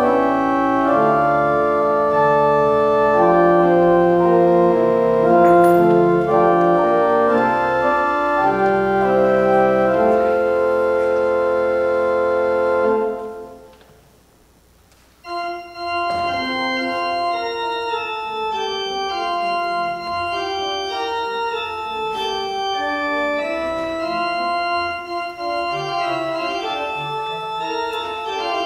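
Church organ playing held chords over a low bass line. About thirteen seconds in it fades out, and after a pause of about two seconds it starts again, lighter and with shorter, moving notes.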